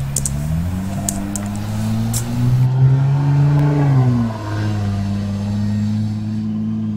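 A car engine running, its revs rising about half a second in, easing back down about four seconds in and dropping again at the very end. Light metallic clicks, as of a ratchet tightening a bolt, come in the first couple of seconds.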